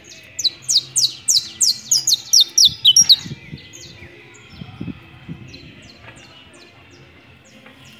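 Saffron finch (canario criollo) singing: a loud run of quick, downward-sweeping high notes, about four a second, which breaks off about three seconds in, followed by softer scattered notes.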